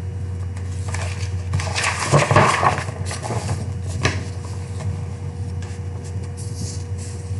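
A sheet of drawing paper rustling as it is picked up and handled, loudest between about one and a half and three seconds in, with a sharp click about four seconds in, over a steady low hum.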